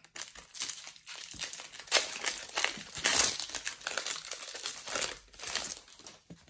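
Foil trading-card packet crinkling as it is torn open and pulled apart by hand, in irregular rustling bursts that stop near the end.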